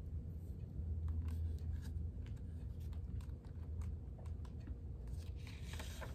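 Quiet room with a steady low hum and a few faint clicks; near the end, a brief rustle of paper as the picture book's pages are handled.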